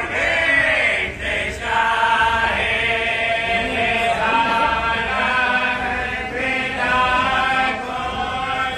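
Men's voices chanting a devotional prayer together, in long held notes that step from pitch to pitch about once a second.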